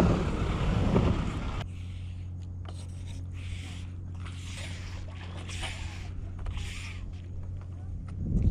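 Wind buffeting the microphone, then a steady low hum under several short rustles of rope sliding through a gloved hand as a magnet-fishing line is handled; the wind noise returns near the end.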